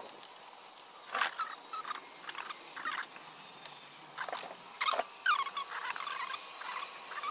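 Scattered light clicks and taps of small parts and tools being handled during a carburetor rebuild, with a run of short squeaky chirps about five seconds in.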